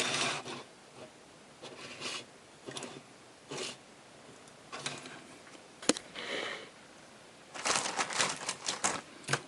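Small old toy cars being handled: scattered rustling scrapes, a sharp click about six seconds in, and a quick run of clicks and rustles near the end.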